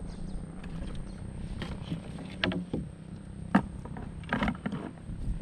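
Water splashing and sloshing around a small wooden sampan, with a few short knocks and splashes from about two and a half seconds in, over a steady low rumble.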